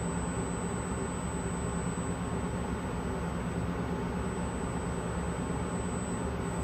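Steady hum of running shop equipment with an even rush of air and a constant thin high whine.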